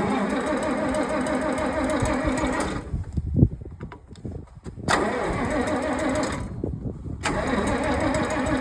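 Old International Harvester tractor's engine being cranked by its starter in three bursts of a few seconds each, without catching: a cold start after a night parked outside.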